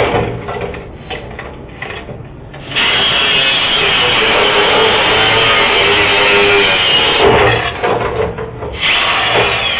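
Angle grinder grinding into a metal vending-machine lock, loud and steady. It eases off for the first three seconds, cuts in again, and stops once more for about a second and a half near the end before resuming.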